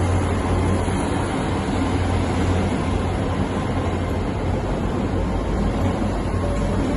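Diesel train engine running steadily at the platform, a constant low hum with no change in level.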